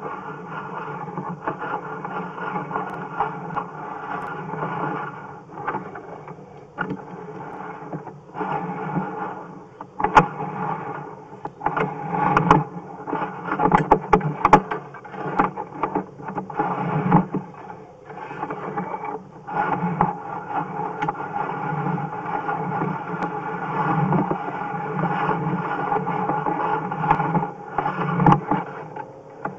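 Sewer inspection camera being pushed down a drain line: a steady scraping rumble of the push cable and camera head against the pipe, broken by irregular knocks.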